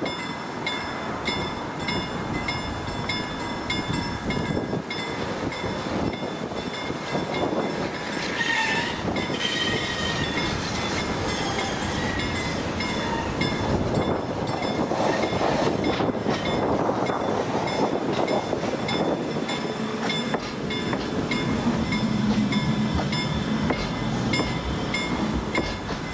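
CAF Urbos tram coming along the track and passing close by, its wheel and rail noise growing louder as it nears, with a brief wheel squeal about eight seconds in. A level-crossing bell rings in regular strokes throughout.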